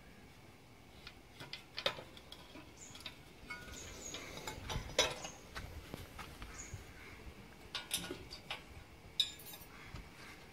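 Scattered metal clinks and knocks from a motorcycle silencer, its tailpipe and a gas welding torch being moved and set down, a handful of separate hits with the loudest about halfway through. The torch is not lit: there is no burner hiss.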